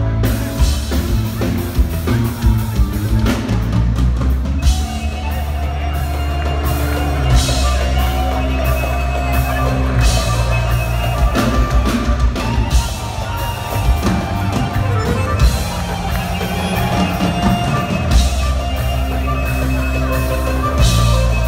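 Live band playing Middle Eastern dance music, with darbuka and violin over a heavy, steady bass and drum beat.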